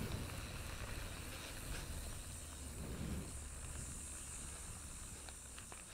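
Mountain bike rolling down a dirt trail: low wind rumble on the microphone and steady hiss of tyres on dirt, with a few light clicks near the end.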